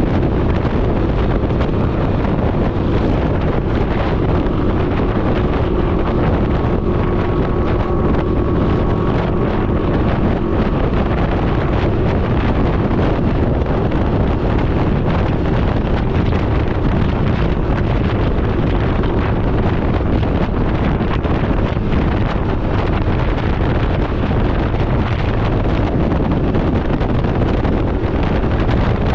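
Heavy, steady wind rush on the microphone of a Can-Am Ryker 900 riding at road speed, with the machine's running noise underneath. A faint steady hum comes through for several seconds early in the stretch.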